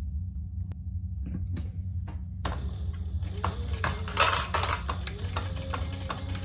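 Sewing machine with its motor humming steadily. A few handling clicks as the fabric and strap are set under the presser foot, then from about two and a half seconds in the machine stitches in short runs of rapid, even needle clicks, the motor speeding up and slowing down between them.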